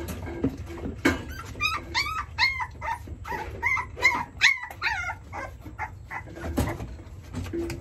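Young puppy whining and yelping: a rapid string of about a dozen short high cries, each rising and then falling in pitch, for about four seconds before dying away.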